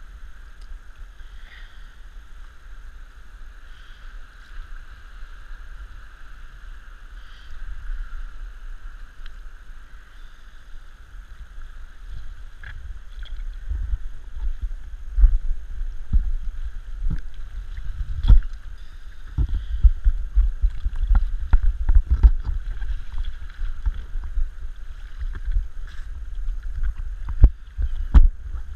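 Small sea waves lapping and slapping against a head-worn GoPro's waterproof housing at the surface, heard as a muffled low rumble with irregular thuds. The thuds grow louder and more frequent about halfway through.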